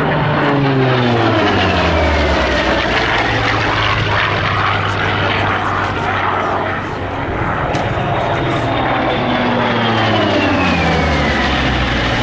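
Hawker Fury's big piston engine and propeller running at high power in low fly-bys. The engine note falls in pitch as the aircraft passes, once near the start and again in the second half.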